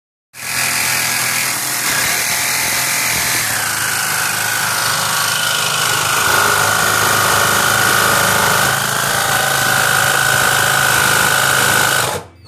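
DeWalt DC330 18-volt cordless jigsaw cutting through a car's sheet-metal roof along a marked line for a sunroof opening: a loud, continuous buzzing rasp of the reciprocating blade in the steel. Its pitch drops a little about three seconds in, and it cuts out briefly just before the end.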